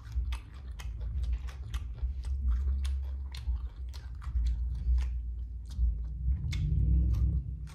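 A person chewing a mouthful of combination pizza topped with fresh jalapeños, with crunching clicks and mouth sounds several times a second.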